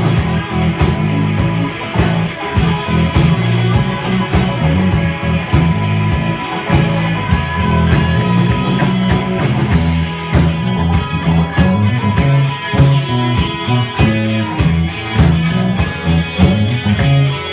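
Live rock band playing loudly, with heavy bass, drums and electric guitar, recorded on a phone microphone.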